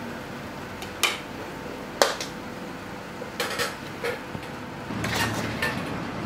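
Metal spatula clanking and scraping against a metal wok as fried rice is scooped. A sharp clank comes about once a second, then a quicker run of scrapes near the end.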